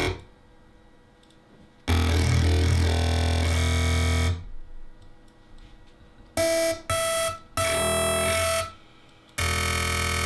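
Serum FM wavetable synth bass patch played as separate notes with gaps between: a long deep bass note about two seconds in, then three short, brighter, higher-pitched notes after the FM oscillator is raised two octaves, then another note starting near the end.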